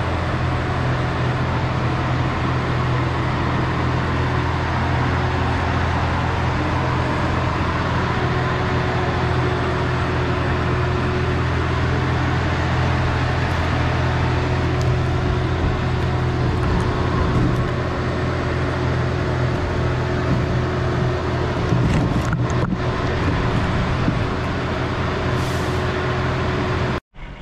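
Trolleybus running as it moves slowly, heard from its roof: a steady low mechanical hum with a faint constant whine. It cuts off abruptly near the end.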